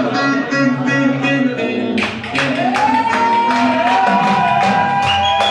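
Ankara oyun havası dance music: a fast plucked bağlama (saz) melody. About two seconds in, a steady drum beat comes in, and a long note slides up and is held over it.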